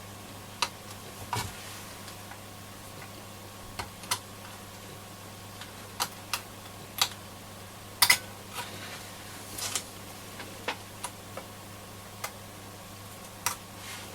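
Irregular sharp clicks and small taps, about a dozen, from desoldering tools working the pins of a circuit board, the loudest about eight seconds in, over a faint steady hum.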